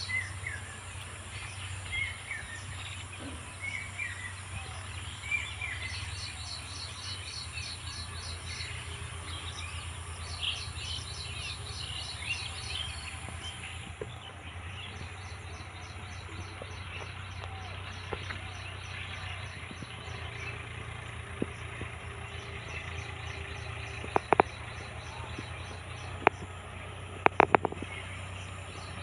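Insects calling in steady, rapidly pulsed trains, with scattered short bird chirps in the first half and a low steady hum underneath. Several sharp clicks near the end are the loudest sounds.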